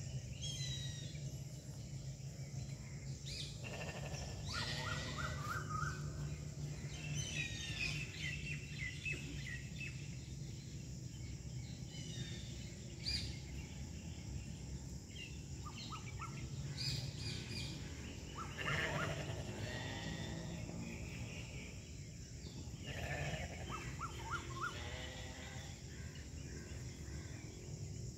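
Outdoor ambience: birds chirping and calling on and off over a steady low hum and hiss.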